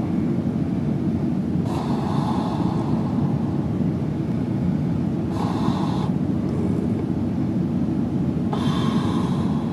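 A man softly snoring in his sleep with his mouth open: three breathy snores, about three and a half seconds apart. A steady low rumble runs underneath.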